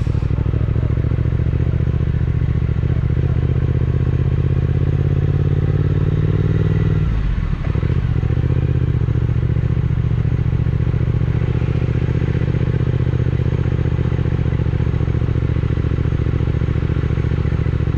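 Triumph Speed Twin 1200's parallel-twin engine running steadily at low speed on a rough dirt track. The engine note dips briefly about seven seconds in, then picks up again.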